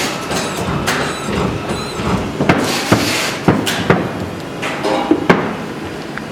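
Mori Seiki SL-OH CNC turning centre running through a program: a string of sharp mechanical knocks and clunks, several close together in the second half, with spells of hissing in between.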